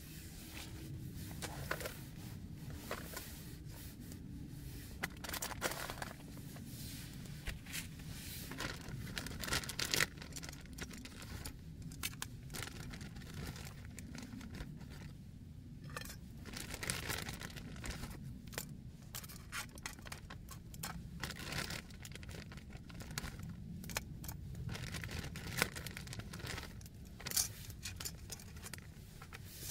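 Plastic bags rustling and crinkling as food is picked out of a zip-top bag with a bag-covered hand and laid in a titanium pan, with scattered light scrapes and clicks, over a low steady rumble.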